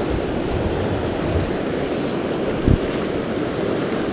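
Steady rush of a fast, high-running mountain creek, its whitewater at spring-high flow, with a brief low thump about two-thirds of the way through.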